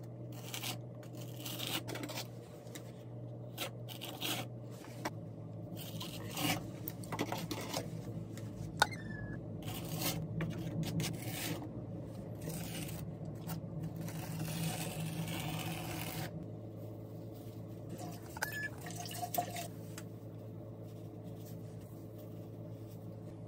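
Notched steel spreader scraping and combing wet thinset mortar across a wall: a run of short, irregular wet scrapes over a steady low hum.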